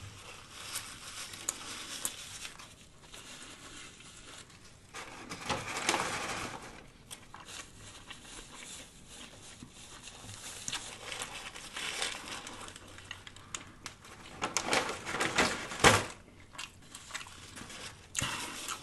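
Close-miked eating sounds: chewing and crunching a lettuce-wrapped sub sandwich, with its paper wrapper crinkling, in irregular bursts. They are loudest about six seconds in and again around fifteen seconds in.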